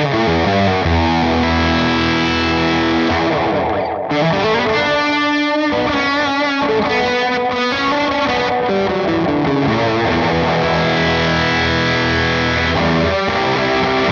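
Yamaha Pacifica electric guitar played through a Gokko Mogwai pedal in its overdrive mode: distorted chords and held notes, with a momentary break about four seconds in.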